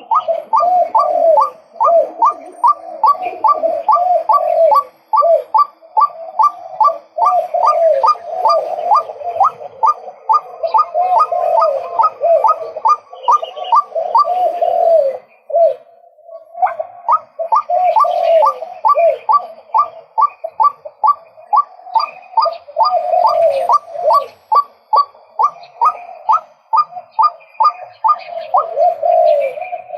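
Male white-breasted waterhen calling: a fast, steady run of repeated notes, about three a second, each a sharp falling note over a lower croak. The run breaks off briefly about halfway through, then resumes.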